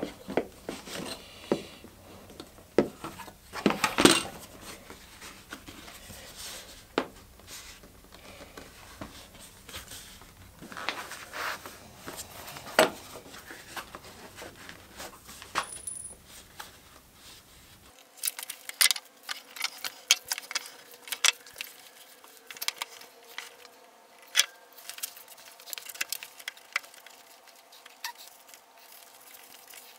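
Hand tools and leather being handled on a workbench: scattered light clicks and taps as tools and a metal ruler are set down and moved, with a few brief scraping swishes of leather and tool.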